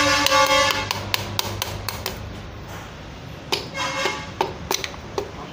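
A piston being tapped down through a ring compressor into a cylinder bore of a Suzuki Ertiga gasoline engine block: a run of light, sharp taps, about four a second, then a few scattered taps. A steady horn sounds through the first second.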